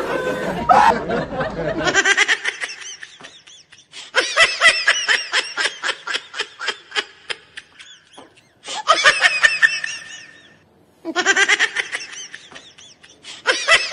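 High-pitched giggling laughter in quick pulses, about five a second, coming in several bouts with brief pauses between them.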